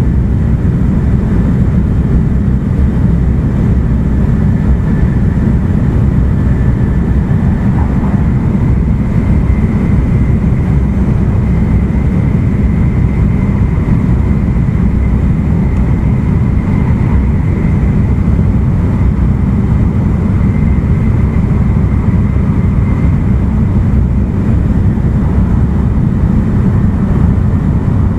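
Running noise inside an E2 series Shinkansen car at speed: a loud, steady low rumble from the wheels on the rails and the running gear. A faint high whine comes and goes through the middle.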